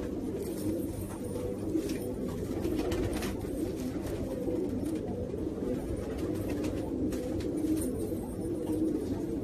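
Domestic pigeon cooing: a continuous, low, rolling coo that goes on without a break.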